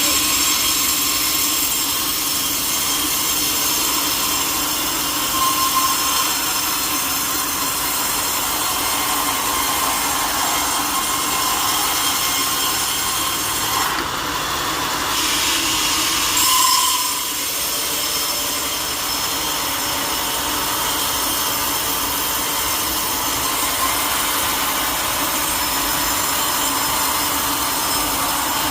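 Sawmill saw cutting through a teak log: a steady run of sawing noise with a constant high whine. It briefly eases about halfway through, then swells and settles back into the cut.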